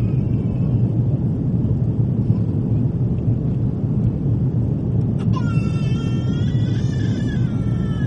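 Airbus A340 cabin noise during the climb after take-off: the steady low drone of its four CFM56 engines and the airflow. About five seconds in, a high, wavering cry rises over it for about three seconds.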